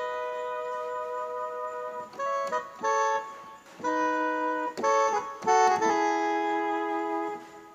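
Korg Pa300 arranger keyboard playing an accordion-like sampled voice: held chords alternating with short detached notes, the playing stopping near the end.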